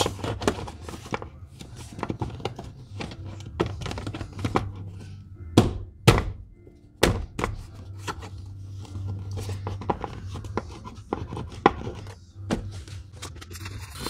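Hard plastic seat side trim panel being pushed and snapped onto a power seat: a run of knocks and clicks, with a few sharper snaps about halfway through.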